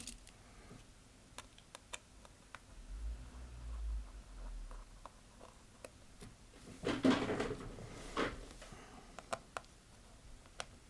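Small clicks and taps of tiny tools and parts being handled while a smartphone's home button is taken off for transfer, with a brief louder rustle or scrape about seven seconds in.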